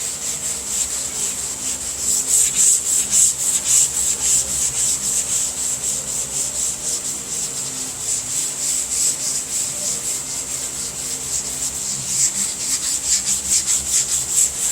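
Hand block sanding of a car's hood: sandpaper on a long sanding block rasping in quick, even back-and-forth strokes along the panel's front edge. A faint steady hum sits underneath.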